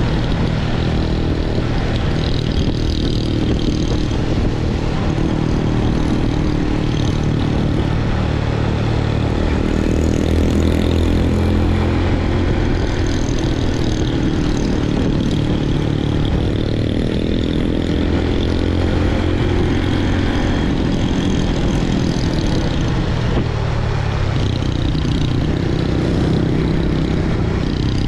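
Motor scooter engine running at riding speed, its pitch rising and falling with the throttle, under a steady rush of wind and road noise on the microphone.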